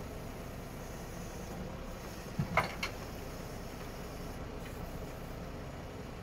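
Volvo FL 290.12 truck's diesel engine running steadily, driving the hydraulics of its truck-mounted knuckle-boom crane as the boom unfolds and extends. A quick cluster of three knocks comes about two and a half seconds in.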